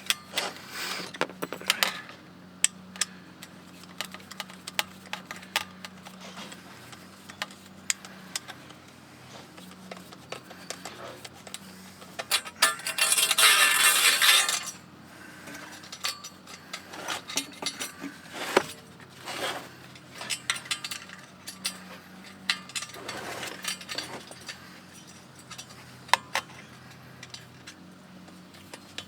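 Small metal fittings and tools being handled during a van heater install: scattered clinks, clicks and knocks, with a loud noisy scraping stretch of about two seconds around the middle, over a faint steady low hum.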